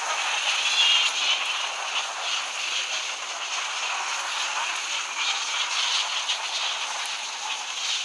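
Massed calls of a huge number of flying foxes (fruit bats) flying out overhead: a dense, unbroken chatter of countless short, high calls, with a steady high hiss beneath.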